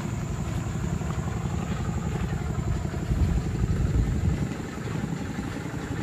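Tractor engine running steadily, a low rumble with a fast even pulse.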